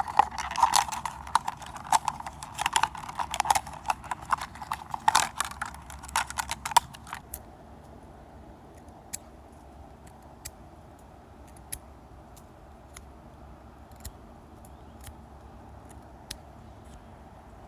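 A folding knife's blade sawing through a plastic bottle: a dense run of crackling and snapping of plastic for about seven seconds, which stops abruptly. After that come faint, single ticks roughly once a second.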